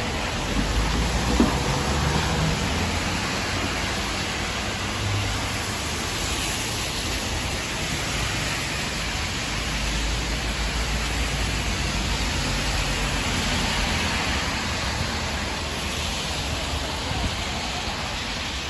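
Steady hiss of heavy rain on a wet city street, with tyres swishing on the wet road. A city bus rumbles past close by in the first few seconds, with a single short knock about a second and a half in, and another vehicle goes by about halfway through.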